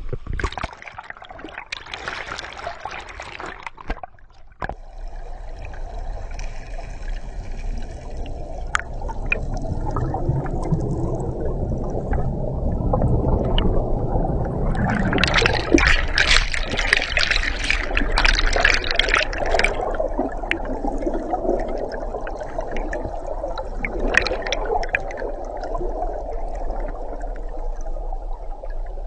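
Water splashing and gurgling as a diver goes into a river, then the muffled sound of the camera underwater, with a louder stretch of bubbling and splashing in the middle.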